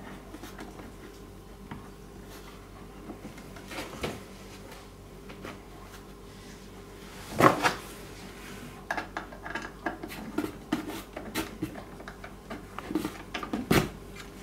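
Small clicks, taps and knocks of metal screws and wooden chair-frame parts being handled as self-tapping screws are started into the brace by hand, with a louder clatter about seven and a half seconds in and a run of quick small clicks after it.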